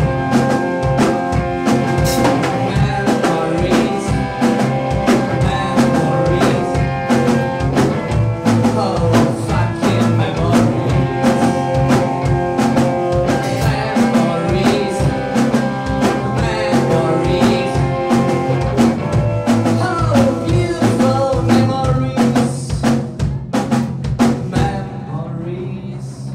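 Live rock band playing: electric guitar, bass guitar and drum kit. Near the end the drums stop and the guitars ring on more quietly.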